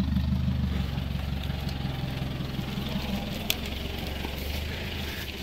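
Vehicle engine idling steadily at low revs, with a single sharp click about three and a half seconds in.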